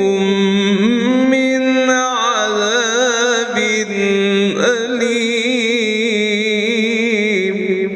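A man's voice in melodic Quran recitation (tajweed), holding a long ornamented note with wavering trills, with a short break and pitch glide about halfway through.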